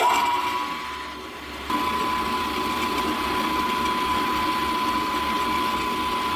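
Small milling machine's motor running steadily with a high whine, getting louder and staying even from about two seconds in.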